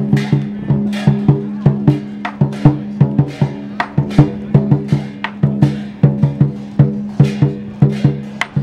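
Large Chinese lion-dance drum beaten with sticks in a fast, uneven rhythm, several sharp strikes a second with some accented hits and clicks, over a steady low ring from the drum.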